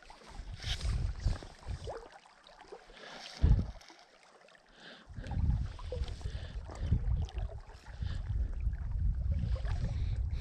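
Gusty wind rumbling on the microphone over the faint rush of a mountain river. The wind drops away for a few seconds in the middle, with one dull bump about three and a half seconds in.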